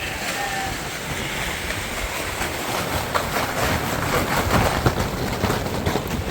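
Freezing rain and ice pelting the barn roof in a storm: a dense, steady rush thick with sharp little hits, which grows louder from about halfway through.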